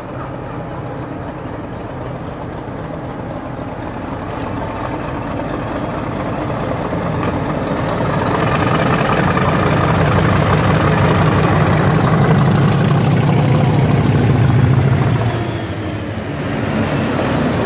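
Class 50 diesel-electric locomotive with its English Electric 16-cylinder engine working hard as it pulls away with a train. The engine gets steadily louder as the locomotive approaches, with a high whistle rising in pitch. The sound drops suddenly near the end as the locomotive passes, and the coaches follow.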